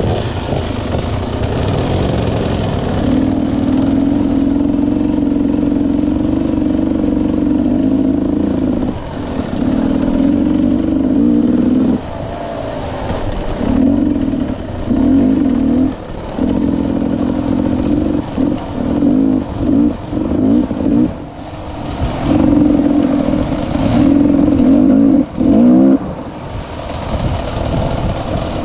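Enduro dirt bike engine running under throttle, pulling steadily for several seconds, then opened and closed in a string of short bursts from about halfway in.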